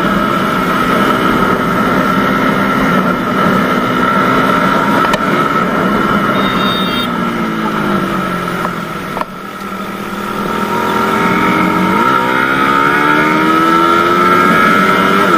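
Suzuki Satria FU's single-cylinder four-stroke engine running at road speed under wind rush. About eight seconds in, the engine note drops and fades as the throttle closes, then from about twelve seconds it climbs again as the bike accelerates.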